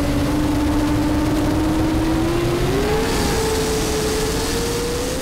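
Fountain 42 Lightning powerboat's engines running at speed, their drone climbing steadily in pitch with a quick step up about three seconds in as the boat accelerates, over the rushing hiss of wind and water.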